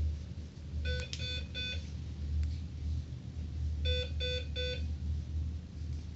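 An electronic alarm beeping in two sets of three short, even beeps, one set about a second in and the next about three seconds later, over a steady low hum.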